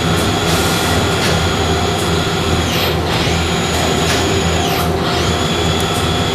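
Okuma Millac 852V CNC machining center running, with a steady machine hum and a high spindle whine that drops away and comes back twice, a little before and a little after the middle.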